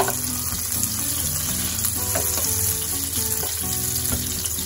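Butter and oil sizzling in a hot non-stick frying pan as a wooden spatula pushes the melting block of butter around, with a few light scrapes and taps of the spatula on the pan.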